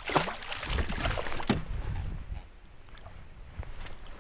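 Hooked pike thrashing and splashing at the water's surface beside the boat, loudest over about the first two seconds and then dying down to smaller water sounds.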